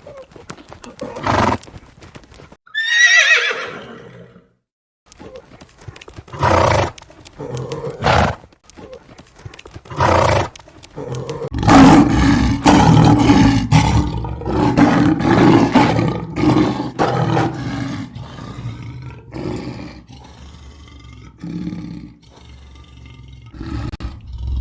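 Horse whinnying once about three seconds in, a falling call, among a series of short, sharp sounds, with a louder, denser stretch of sound in the middle.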